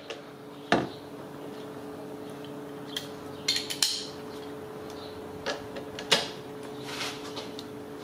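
Several separate metallic clinks and knocks from a long breaker bar and socket being repositioned and worked against a very tight engine-mount nut, over a faint steady hum.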